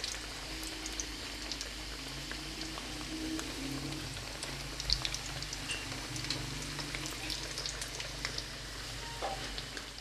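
Samosas deep-frying in hot oil in a karahi: a steady sizzle with fine crackling, with a single sharp tap about five seconds in.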